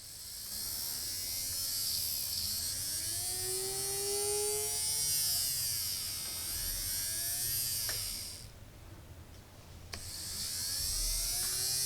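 Small DC motor running with a high buzzing whine; it stops about two-thirds of the way through and starts up again a second and a half later.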